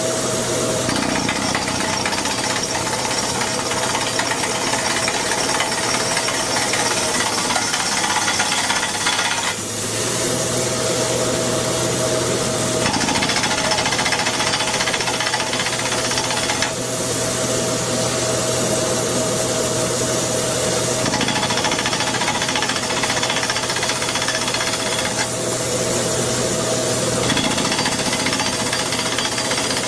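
A well-drilling rig boring an artesian water well: loud, steady machine clatter with a constant hum underneath. The sound changes abruptly several times.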